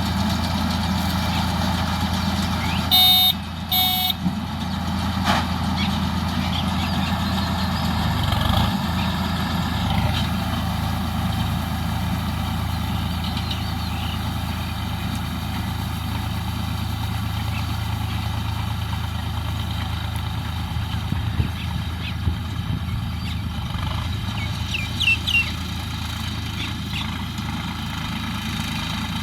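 Tractor engine running steadily at a constant speed, as when powering a straw baler. About three seconds in come two short, high beeps.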